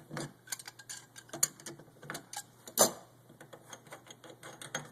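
Irregular small clicks and ticks of a faucet cartridge and tool being worked loose from a kitchen faucet body, with one sharper knock about three seconds in.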